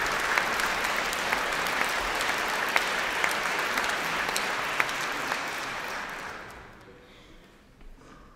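Audience applauding, the clapping fading away about six to seven seconds in.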